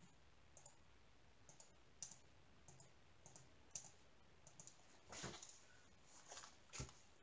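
Near silence, broken by faint scattered light clicks and a soft rustle about five seconds in, from packaged kits being handled.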